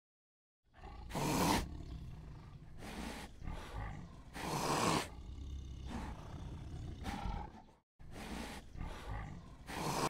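Big cat giving a series of short roaring calls, about eight in all, a second or so apart.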